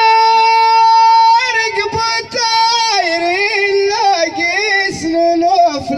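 A single high voice singing solo and unaccompanied, in Moroccan Amazigh ahwach style. It holds one long steady note for about a second and a half, then moves into a wavering, ornamented melodic line with several shorter held notes.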